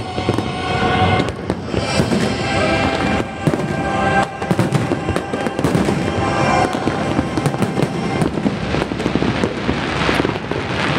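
Aerial fireworks bursting in quick succession: a dense run of bangs and crackling throughout, with show music playing underneath.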